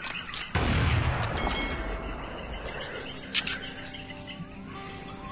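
Steady high-pitched drone of insects in forest, with a loud rustling burst about half a second in that dies away over a second or so, and a single sharp click a little past the middle.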